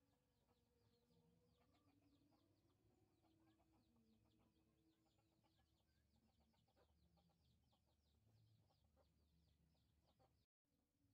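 Near silence, with faint chickens clucking and many short high chirps, several a second. The sound drops out entirely for a moment near the end.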